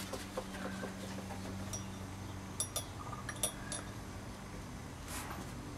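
Glassware clinking as a glass hydrochloric acid reagent bottle is handled: four light, ringing clicks in quick succession around the middle, over a steady low hum.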